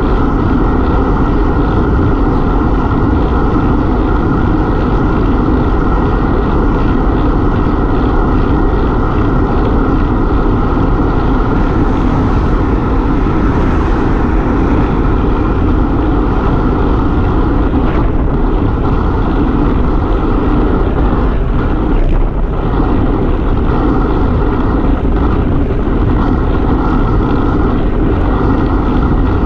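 Steady, loud wind rushing over the microphone of a handlebar-mounted camera on a road bike riding at speed. A car passes close alongside about halfway through.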